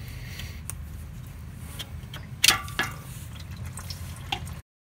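Engine oil trickling and dripping out of a punctured spin-on oil filter, with a couple of sharp knocks about halfway through. The sound cuts off abruptly near the end.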